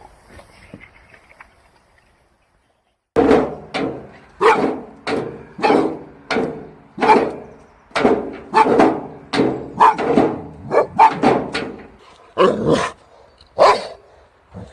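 A dog barking over and over, about two barks a second, starting about three seconds in.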